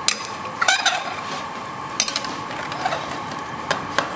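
A metal ladle knocking and scraping against the sides and rim of a large metal pressure cooker while chicken pieces are stirred in boiling liquid. There are scattered sharp clinks, a few close together about three-quarters of a second in and one near the end, over a steady background hiss.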